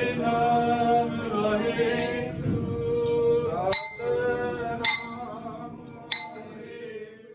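Voices singing a Sikh shabad (hymn) in a slow, sustained melody. Three sharp clinks, a little over a second apart, come from about midway. The singing fades toward the end.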